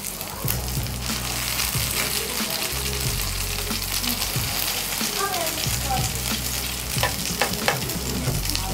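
Shrimp patties sizzling as they fry in oil in a pan on low heat, crisping to a crust. A metal spatula moves among them, with a few sharp knocks against the pan near the end.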